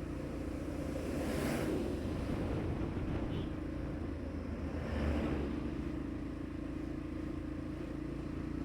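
A motorcycle engine idling steadily while large vehicles pass close by. The passing noise swells about a second and a half in and again around five seconds.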